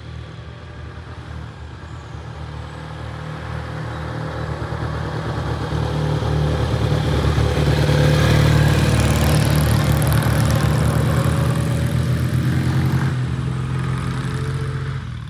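A classic BSA Golden Flash 646cc parallel-twin motorcycle riding past with a steady engine note. It grows louder as the bike approaches, is loudest about eight seconds in, then eases slightly as it passes and moves off.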